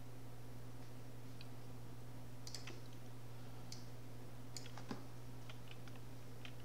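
Computer mouse clicks, a dozen or so short, irregular clicks spread through, over a steady low electrical hum.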